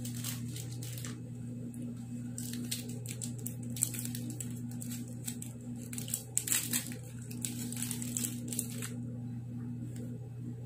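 Plastic chocolate-bar wrapper being torn open and crinkled by hand. The crinkling comes in short crackles, mostly between about two and nine seconds in, over a steady low hum.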